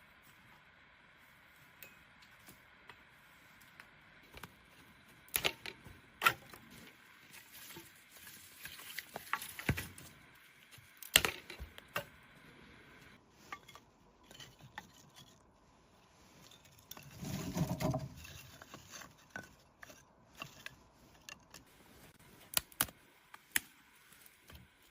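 Scattered sharp knocks and clicks of objects being handled, with a rustling stretch and one longer, heavier scrape partway through, over a faint steady hiss.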